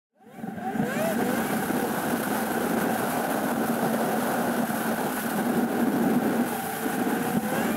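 A car driving along a road, heard from a camera mounted outside on its roof: steady road and wind noise with engine hum, fading in during the first half second.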